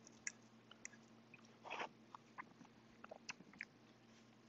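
Faint chewing with small wet mouth clicks as a mouthful of food is chewed, and one brief soft noise a little under two seconds in.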